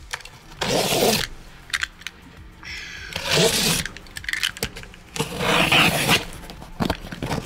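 A utility knife slicing through the packing tape on a cardboard box: three strokes of about a second each, with a few short clicks between.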